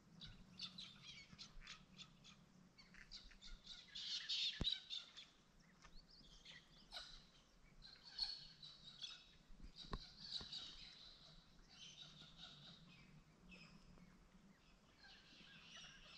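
Faint chorus of wild birds chirping and calling in quick, clustered bursts, with two sharp clicks and a faint low hum beneath.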